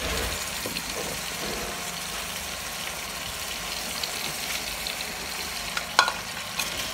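Meat in a pepper-and-tomato sauce sizzling steadily in an aluminium pot over a gas burner, with a utensil stirring and clicking against the pot at the start and a sharp click about six seconds in.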